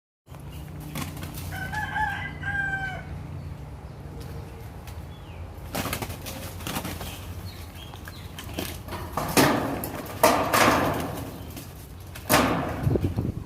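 Bangkok gamecock giving two short calls, then several loud bursts of wing flapping and scuffling, the strongest in the last few seconds.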